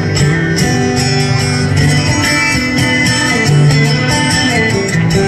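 Solo acoustic guitar strummed and picked live, with chords ringing on through a steady rhythm, heard from the audience in a large hall.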